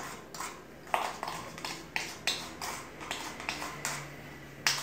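Spoon tapping and scraping inside a small cup to knock crushed garlic out into a bowl: a quick run of light clicks, about three a second, with a louder knock near the end.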